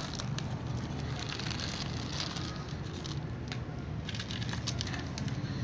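A cat crunching dry kibble off a plastic chair seat, with the pellets clicking on the plastic as they are tipped from a metal scoop: many small irregular clicks and crunches over a steady low hum.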